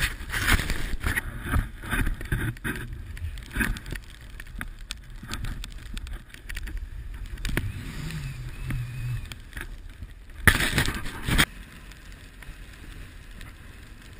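Snowboard sliding and scraping over snow, with wind buffeting the microphone of a pole-mounted action camera. A louder rush of noise lasts about a second around ten seconds in.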